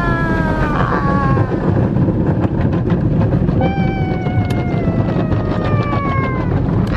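Automatic car wash heard from inside the car: brushes and water spray running over the body and windshield, a steady rumble with patter and slaps. Over it, a high whine-like tone slides slowly down in pitch for about three seconds, once at the start and again from about halfway in.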